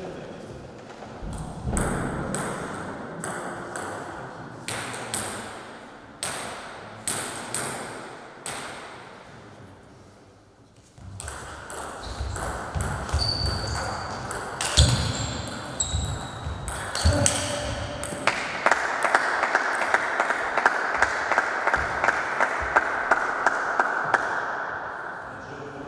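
Table tennis rally: the celluloid ball clicking off bats and the table in quick alternation, echoing in a large hall. After a short lull come a few sharp louder impacts, then several seconds of dense, steady noise with rapid clicks running through it.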